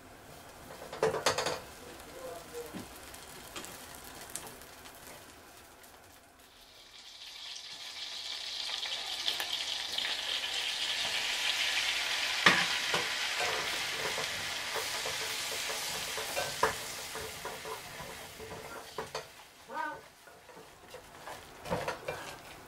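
Butter sizzling in a small stainless steel saucepan. The sizzle swells after several quiet seconds and then dies down as flour is cooked into it to make a roux for béchamel sauce. A silicone spatula knocks and scrapes against the pan a few times.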